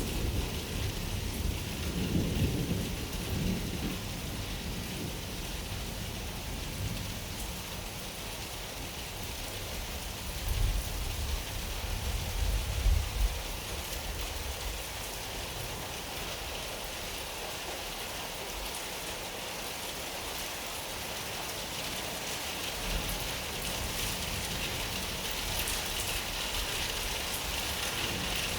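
Steady rain with rolling thunder: low rumbles of thunder in the first few seconds and again about ten to thirteen seconds in, under a constant hiss of rain that grows heavier near the end.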